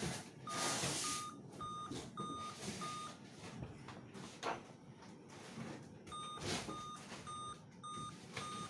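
Electronic beeping: two runs of five short, identical beeps about half a second apart, with a pause of about three seconds between the runs. Faint handling clicks and rustles underneath.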